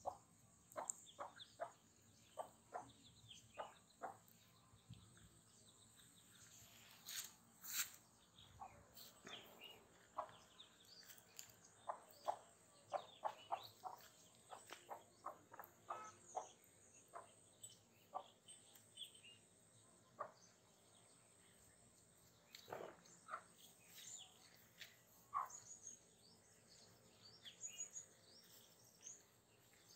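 Faint short chirps and peeps from a brood of young ducklings and their mother hen, coming in quick scattered runs.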